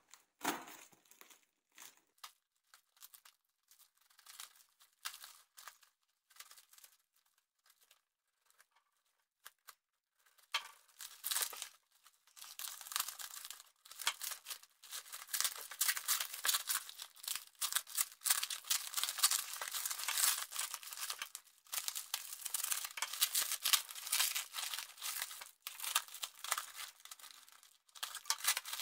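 Plastic parcel wrap being handled, torn and crinkled open by hand. Scattered faint rustles for about the first ten seconds, then near-continuous crinkling and tearing with a few brief pauses.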